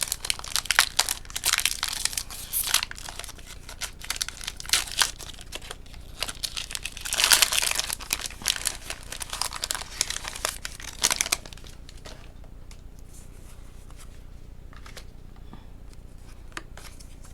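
Foil wrapper of a Pokémon TCG booster pack being crinkled and torn open, loudest about seven seconds in. The crinkling stops about eleven and a half seconds in, leaving only faint occasional clicks.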